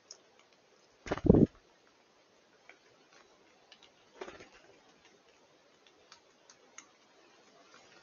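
Nuthatch knocking at seeds on a wooden stump feeder: a short run of loud knocks about a second in, then scattered light ticks and a softer knock about four seconds in.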